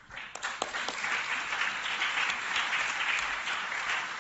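Audience applauding: a few scattered claps at first, then steady clapping from about a second in.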